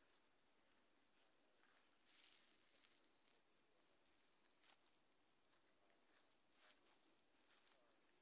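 Faint night insect chorus of crickets: a steady high trill with a second, lower trill that comes and goes. A few brief soft noises stand out over it.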